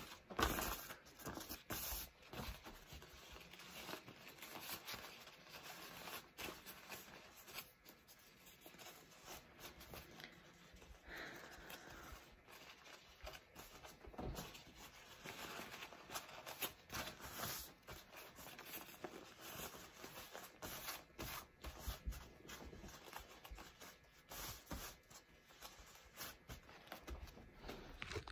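Blue sterilization wrap rustling and crinkling as its corners are folded and pressed flat around a bowl, in faint, irregular crackles and swishes.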